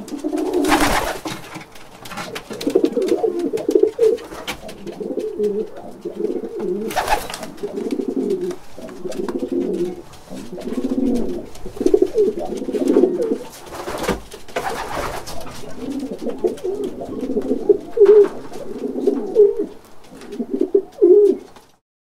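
Caged pigeons cooing constantly in overlapping low phrases, with a few short bursts of wing flapping. The sound stops just before the end.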